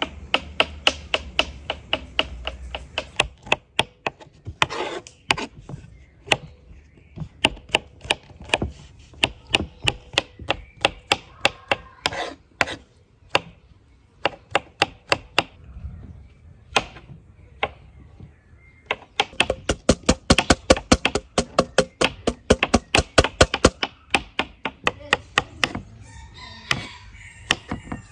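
Kitchen knife chopping button mushrooms on a bamboo cutting board: quick, even knocks of the blade on the wood, about four or five a second. They thin out to scattered strokes in the middle, then pick up into a fast, steady run.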